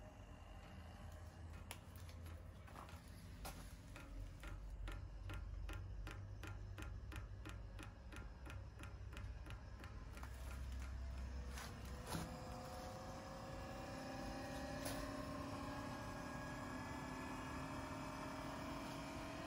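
Eberspacher D1LC diesel air heater going through its start cycle: an even ticking, about two to three ticks a second, typical of its fuel dosing pump, then a click about twelve seconds in and the blower motor's whine starting up and slowly rising in pitch as it spins up.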